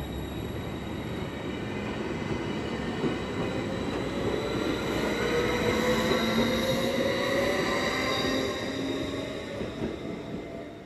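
BLS double-deck electric multiple unit running past on the rails, its electric traction whine rising in pitch as it pulls away, over the rumble of the wheels. It is loudest about halfway through and fades as the last car goes by.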